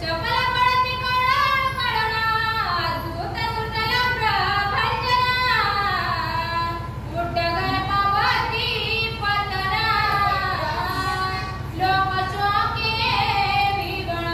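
A woman singing a verse of a devotional text in a slow, ornamented melody with long gliding notes, over a steady low hum.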